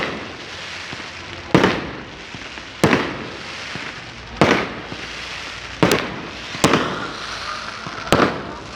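Firecrackers going off one at a time: about seven sharp bangs at uneven intervals of a second or so, each with a short ringing tail, over a steady hiss.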